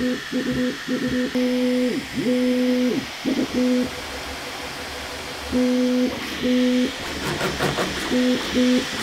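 Bambu Lab A1 3D printer's motors sounding a string of humming tones during its pre-print calibration, switching on and off in short beeps and longer holds, with a few pitch slides about two seconds in. Rapid clicking from the moving toolhead joins near the end.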